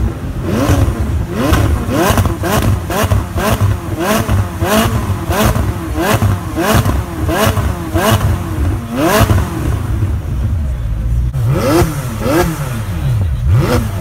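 McLaren 600LT's twin-turbo V8 revved in quick repeated blips, about two a second, its pitch rising and falling each time, with sharp pops between the blips. There is a brief lull about ten seconds in before the blipping resumes.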